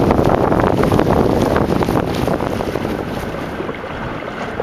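Wind buffeting the microphone, mixed with water splashing and slapping against the hull of a small inflatable sailboat under way on choppy water. The noise eases off a little over the last second or so.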